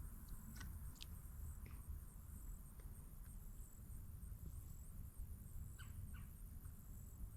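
Faint outdoor ambience: a low steady rumble with a few short, high bird chirps, about a second in and twice near the end.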